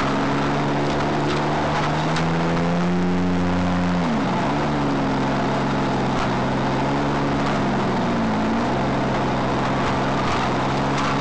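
Off-road car's engine running under load as it is driven, the revs climbing for a couple of seconds, then falling off sharply about four seconds in, with another brief dip in revs later on.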